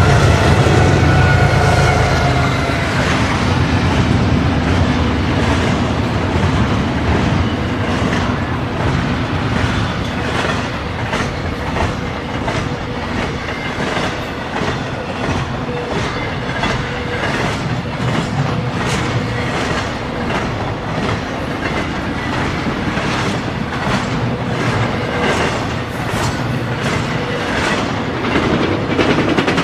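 A BNSF intermodal freight train passing close by. In the first few seconds the diesel locomotives' engine rumble and a trailing horn note fade as they go past. Then a long string of container and trailer cars rolls by, wheels clicking in a steady rhythm over the rail joints.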